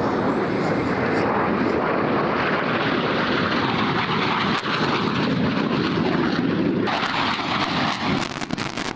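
Military fighter jet flying past with loud, steady jet engine noise. Sharp crackles come in near the end.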